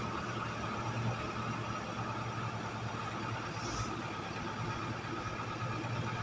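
An engine running steadily at an even, low speed.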